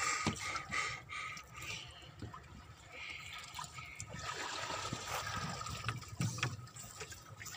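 Water trickling and sloshing around a small fishing boat, with scattered light knocks.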